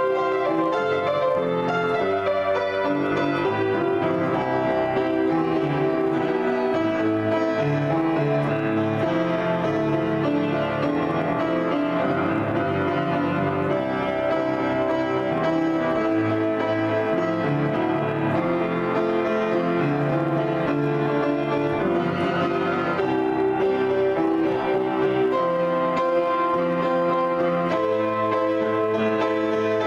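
Solo improvised piano on an upright piano: a continuous flow of notes and chords at an even loudness.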